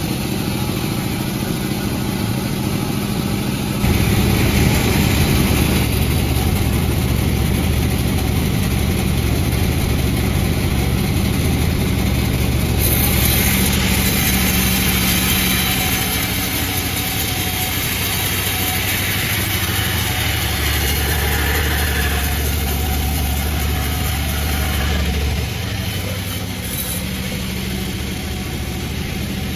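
Panda36 chainsaw engine running steadily, stepping up in speed and loudness about four seconds in and dropping back a few seconds before the end.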